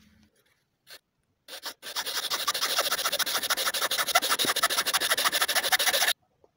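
Hacksaw cutting through a wooden door-frame strip in a miter box: after a few light taps, a rapid run of rasping saw strokes starts about two seconds in and stops abruptly about a second before the end.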